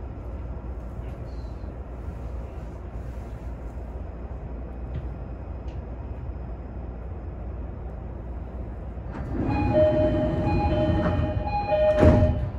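Steady low rumble of a commuter train. About nine seconds in, a short electronic chime melody of a few clear tones plays for about three seconds, with a loud knock near its end.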